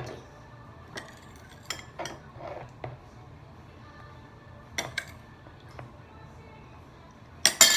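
A spoon knocking and clinking against a mixing bowl in scattered, irregular taps as slime is stirred, with a louder clatter near the end.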